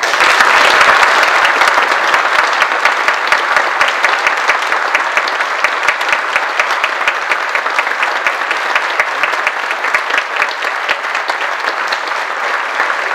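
Large audience applauding. The applause starts suddenly, is loudest in the first couple of seconds, then goes on steadily and eases slowly.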